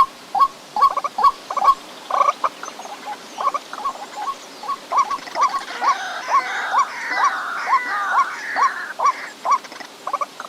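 White-breasted waterhen calling: a monotonous run of short, croaking, upward-slurred notes repeated about two to three times a second, with a rougher chattering sound overlapping from about six to nine seconds in.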